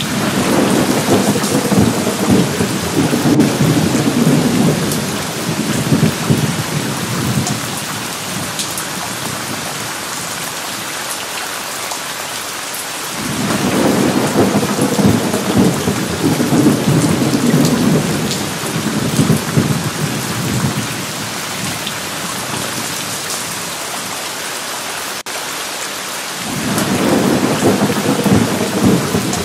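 Steady rain with three long rolls of thunder, each rumbling for several seconds: one at the outset, one about halfway through, and one starting near the end.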